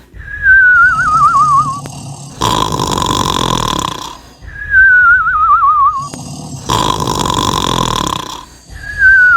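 Cartoon snore sound effect in a steady loop, about one cycle every four seconds. A loud rasping snore on each breath in alternates with a whistle on the breath out that wavers as it slides down in pitch. There are three whistles and two snores.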